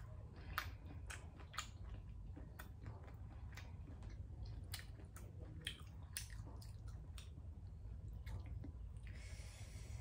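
A person chewing steamed squid, with irregular sharp mouth clicks and squishing as the squid is pulled apart by hand, over a steady low hum.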